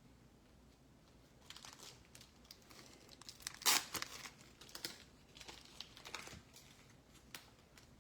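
Plastic trading-card packaging crinkling and tearing as it is handled and opened. The crackling starts about a second and a half in, is loudest about midway and comes in irregular bursts after that.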